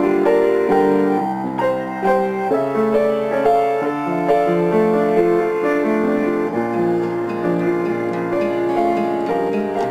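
Instrumental piano music: slow, sustained notes and chords.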